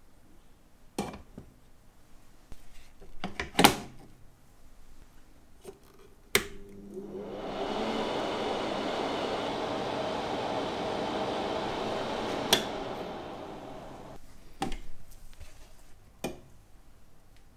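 Elma Dry parts dryer's fan switched on with a click, blowing with a steady hiss for about five seconds, then clicked off and winding down. Sharp knocks of the stainless parts basket being handled before and after.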